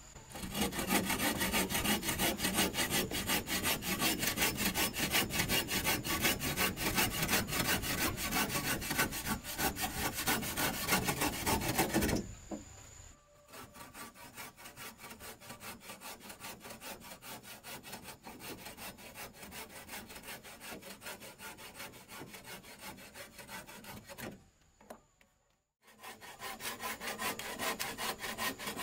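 Hand bow saw cutting through timber with steady, rapid back-and-forth strokes. The sawing comes in three stretches: loud, then quieter for about ten seconds, then after a short break loud again near the end.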